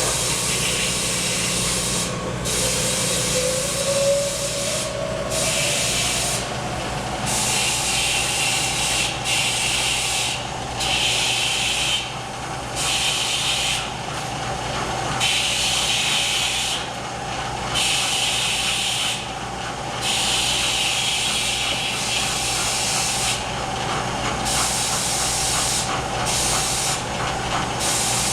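Bridgeport vertical milling machine running: a steady hum with a tone that rises over the first several seconds and then holds steady. A hiss comes and goes every second or two.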